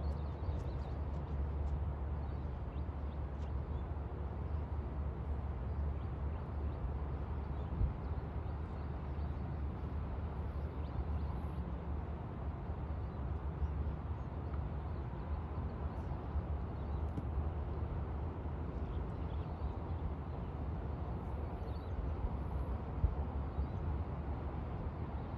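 Wind rumbling steadily on the microphone at the lakeside, a low buffeting roar with a few faint ticks.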